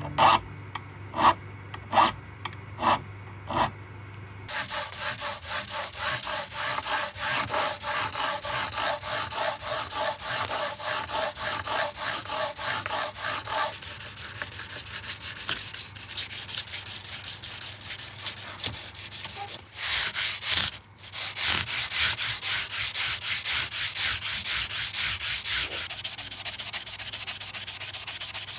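Five slow file strokes across the stainless steel fret ends at the edge of an ebony fretboard, then from about four seconds in a fast, steady back-and-forth scrubbing of an abrasive pad over the fretboard and frets, broken by a brief pause around twenty seconds.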